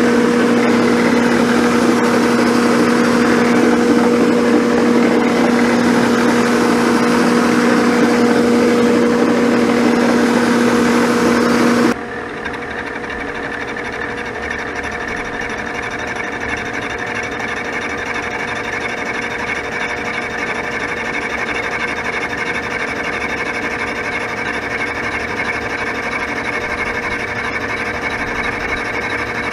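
Abene milling machine spindle running with a spiral end mill cutting the side of a cast iron straight-edge casting: a steady machining drone with a strong low hum. About twelve seconds in, the sound changes abruptly to a quieter, higher steady whine of the same cut.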